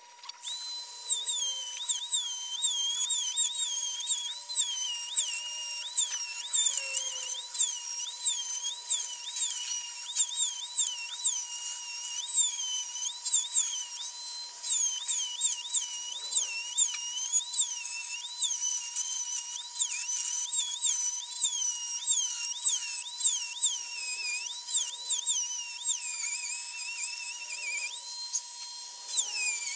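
Craftsman rotary tool with a carbide pine-tree burr grinding cast iron. It gives a high-pitched whine that keeps dipping in pitch as the burr bites into the metal and rising again as it eases off.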